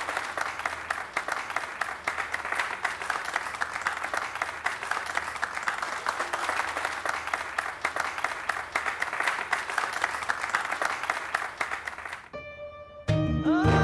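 An audience clapping steadily for about twelve seconds. It dies away and music with sustained instrument tones comes in loudly near the end.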